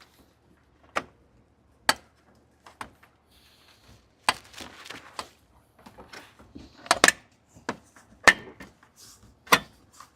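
Sharp plastic clicks and knocks, about seven of them spread out, with scraping and rustling between: the Jeep's plastic grille clips being popped loose and the grille handled.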